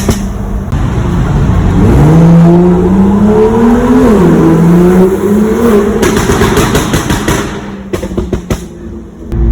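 BMW M2's turbocharged straight-six exhaust crackling and popping, then the engine accelerating hard, its pitch rising through a gear change about four seconds in. A burst of exhaust pops and bangs follows when the throttle is lifted around six to seven seconds in, with a few scattered pops near the end.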